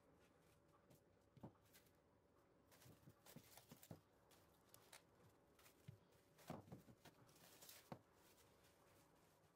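Near silence, broken by faint rustles and light taps from a cling-film-wrapped dough log being rolled and handled on a woven placemat.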